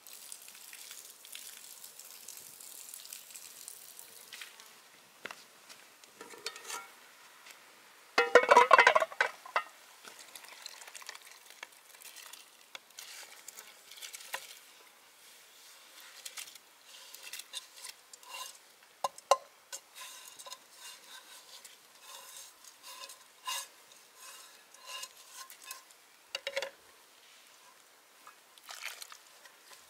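Metal frying pan scraping and clinking against the rim of a cooking pot as its contents are poured and scraped in. There is a faint hiss at the start, a louder burst of scraping about eight seconds in, then a run of short metallic clinks.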